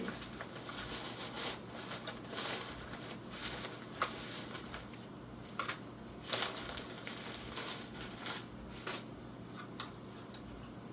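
Rustling and crinkling of packaging being handled while a holster is unboxed, with scattered sharp clicks and taps.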